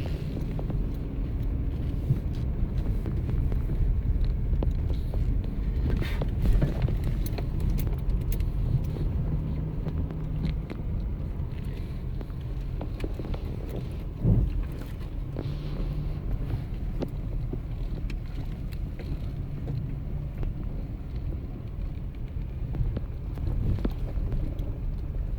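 Van driving slowly over a rough, bumpy road: steady low engine and road rumble with scattered knocks and rattles, and two louder jolts, one about six seconds in and one about fourteen seconds in.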